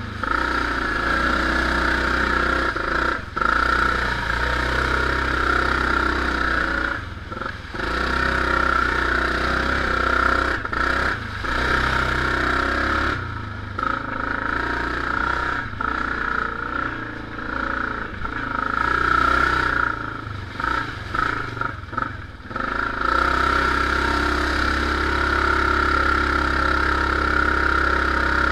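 Yamaha Grizzly ATV's single-cylinder four-stroke engine running hard under way. The revs drop briefly several times as the throttle eases off, then pick back up.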